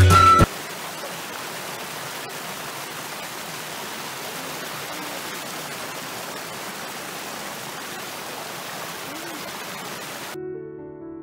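Creek water rushing steadily over a small rock cascade, an even hiss. Piano music comes in near the end.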